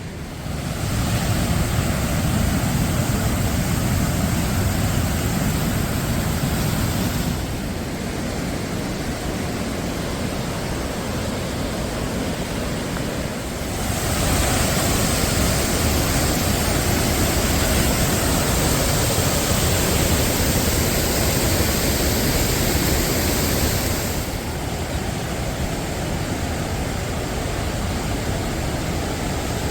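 Rushing water of a glacier-fed waterfall, a loud, steady noise that changes abruptly in loudness and tone four times along the way.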